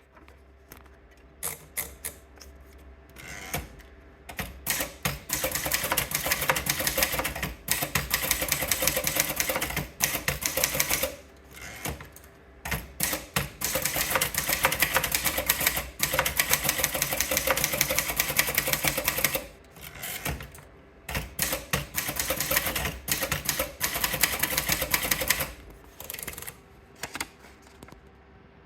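Remington Envoy portable manual typewriter being typed on: fast runs of keystrokes broken by short pauses.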